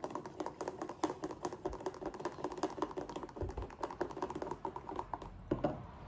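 Black plastic stirring paddle knocking against the inside of a plastic AeroPress-style brewing chamber as coffee grounds and hot water are stirred: a fast run of light clicks and taps, ending with a louder knock about five and a half seconds in.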